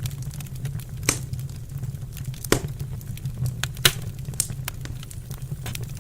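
Wood fire crackling in a fireplace, with scattered sharp pops, the strongest about a second in, two and a half seconds in and near four seconds, over a steady low hum.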